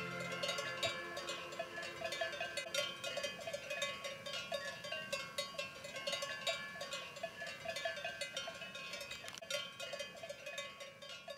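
Bells worn by a grazing flock or herd clanking irregularly: many overlapping, uneven strikes from several bells as the animals move and graze.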